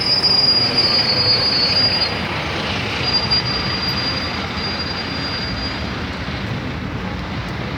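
Street traffic noise with a thin, high-pitched squeal held for about two seconds, then returning more faintly for about three seconds.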